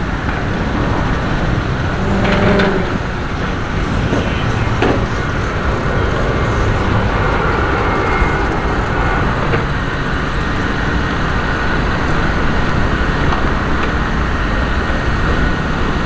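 Steady outdoor rumble of road traffic mixed with construction machinery, with a couple of short knocks a few seconds in.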